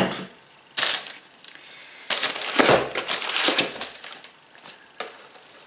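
Cardboard packaging and paper rustling and crinkling as a small product box is handled, in a few bursts, the longest about two seconds in.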